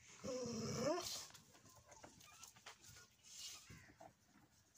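A dog gives one drawn-out, rising howl-like bark a quarter of a second in, lasting under a second, followed by faint scattered sounds.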